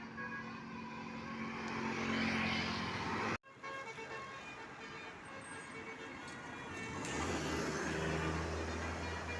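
Road traffic with heavy vehicles such as buses going by, their engines and tyres giving a steady noise. The sound cuts out abruptly a little over three seconds in, then a low engine rumble swells from about seven seconds in.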